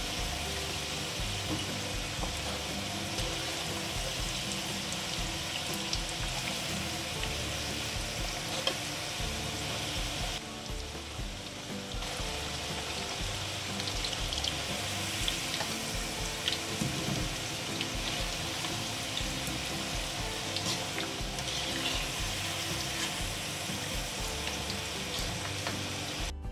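Hot oil sizzling and bubbling steadily around whole baby potatoes as they deep-fry, with scattered sharp crackles. Background music plays underneath.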